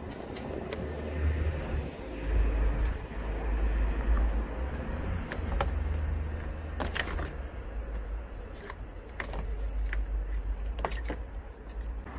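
Scattered plastic clicks and knocks as the plastic front grille of a Vauxhall Astra J is worked against the bumper cover's clips, one longer rattle about seven seconds in. Under them runs a steady low rumble of wind on the microphone.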